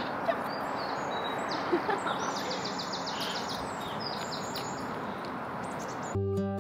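Steady outdoor background noise with small birds chirping now and then, including a quick high trill about two and a half seconds in. Strummed acoustic guitar music comes in near the end.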